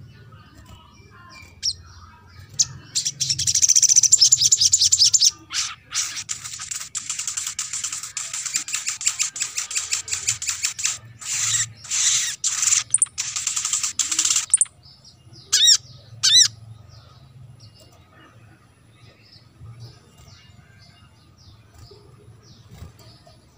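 Sunbird song: a loud, rapid, high trilling chatter that runs for about twelve seconds from about three seconds in, with a short break near five and a half seconds. Two short sharp calls follow, then only faint scattered chirps over a low hum.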